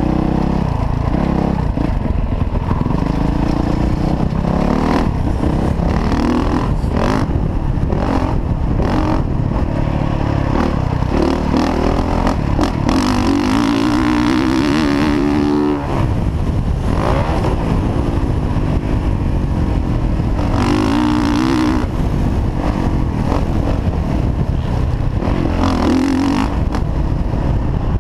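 Dirt bike engine revving hard, its pitch rising and falling again and again as the throttle is opened and shut through the turns, with a short throttle-off dip about halfway through. Wind rumbles over the helmet camera's microphone.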